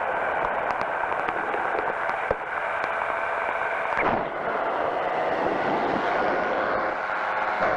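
Powered parachute's engine and propeller droning steadily in flight, with a brief click about two seconds in.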